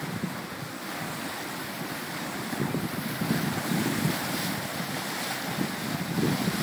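Wind buffeting the microphone in uneven low gusts over the steady rush of sea water along the hull of a sailing yacht under sail, with no engine running.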